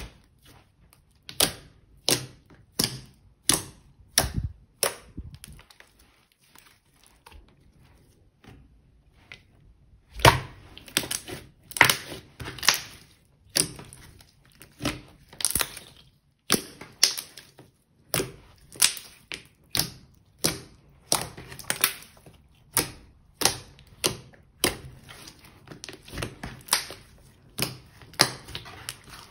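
Pink slime being pressed, poked and stretched by hand: a run of sharp, sticky clicks and pops as trapped air bursts, about one or two a second. It is quieter and sparser for a few seconds from about five seconds in.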